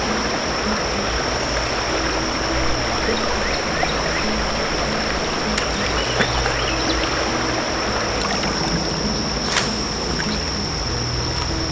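Creek water running steadily, with the constant high-pitched drone of a cicada chorus over it.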